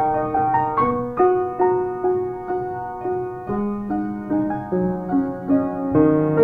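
Solo piano playing a slow, gentle melody, a note or chord struck about twice a second and left to ring, with lower bass notes coming in about halfway through.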